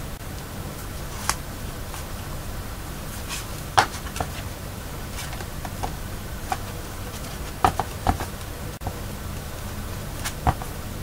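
Handling noise from a hand-bound paper art book with cardboard covers: a few scattered short taps and clicks as the pages and covers are moved and the binding thread is pulled even, over a steady low background hum.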